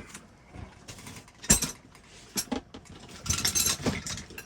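Metal hand tools clinking and rattling as they are handled and sorted, with a sharp clack about a second and a half in and a jangling cluster of clinks near the end.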